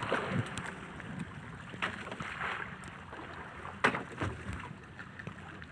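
Choppy sea water lapping and splashing against a fishing kayak's hull, with wind on the microphone. A few sharper slaps stand out, the strongest about four seconds in.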